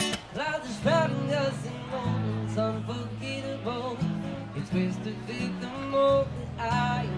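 A man singing a song while strumming an acoustic guitar, his voice rising in phrases over steady chords.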